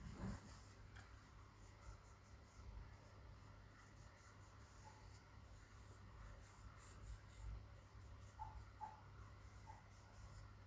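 Faint rubbing of a cotton pad being wiped over the skin of the face, over a low steady hum, with a soft bump near the start.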